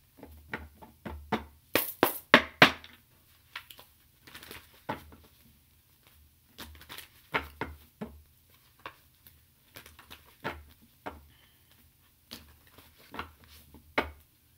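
Oracle cards being shuffled and handled: an irregular run of soft flicks and clicks, some sharper than others.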